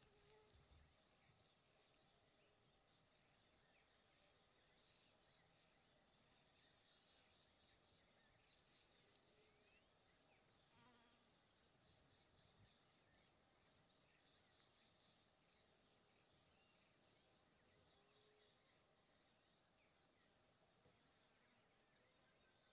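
Faint, steady high-pitched insect trill, with a second insect giving short, evenly spaced chirps that stop about five seconds in.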